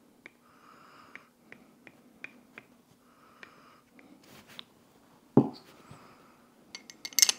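Small metal parts of an AR-15 bolt carrier group clicking as they are handled during reassembly, with a heavy knock about five and a half seconds in and a quick burst of metallic clatter near the end.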